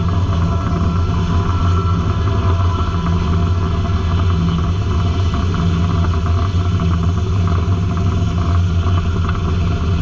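Circle sawmill running steadily: a constant, loud, low-pitched mechanical hum that holds an even level throughout.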